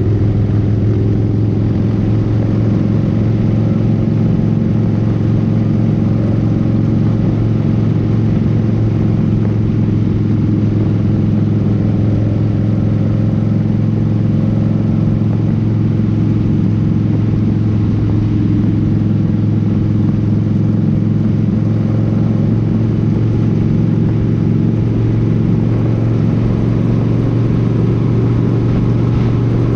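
Cruiser motorcycle's engine running at a steady cruising speed, heard on board the bike, with a constant low drone and wind and road noise.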